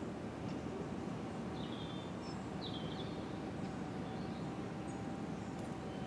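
Steady outdoor background noise with a few short, high bird chirps, about one and a half and three seconds in.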